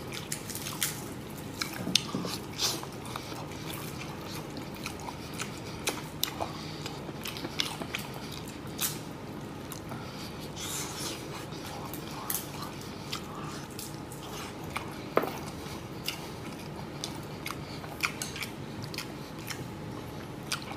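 Close, wet chewing and lip-smacking of a person biting tender braised pork rib meat off the bone: irregular small smacks and clicks, two sharper ones about 2 and 15 seconds in.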